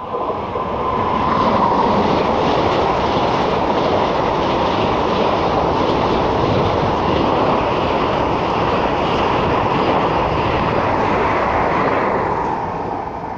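Vande Bharat Express (Train 18) electric multiple unit running through a station non-stop at about 130 km/h: a loud, steady rush of wheels and air from the passing train that begins to fade near the end.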